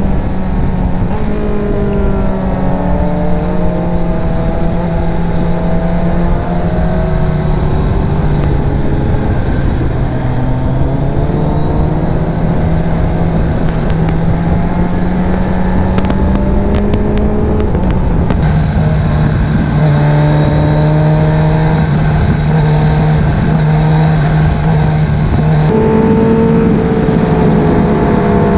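Sport motorcycle engine running under way at cruising speed. Its note rises and falls with the throttle and shifts pitch in steps a couple of times.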